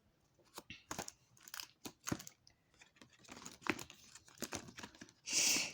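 Packaging being handled: scattered rustling, crinkling and light clicks, with a louder burst of rustling near the end.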